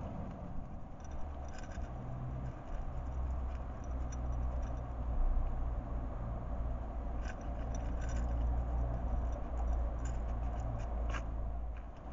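A hedgehog eating from a feeding dish: scattered small crunching clicks, thickest in the second half, over a steady low rumble.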